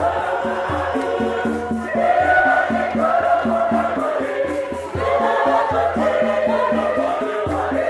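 Choir singing a celebratory hymn over a steady low beat, about three pulses a second.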